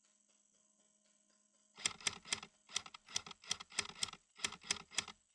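An uneven run of sharp clicks, about two or three a second, starting nearly two seconds in after a quiet start.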